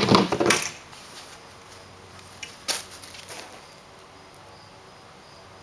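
Handling noise from a small sailboat's mast and sail: a loud rustle at the start, then two sharp knocks about half a second apart a little before the middle.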